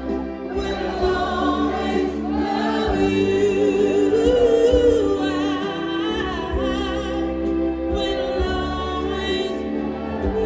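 Live orchestra playing with a female soloist singing long held notes with vibrato, loudest around the middle.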